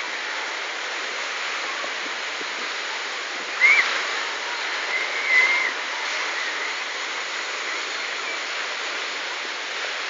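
Steady noise of a crowded sea beach, surf and many voices blended together, with two brief high-pitched shouts about four and five seconds in.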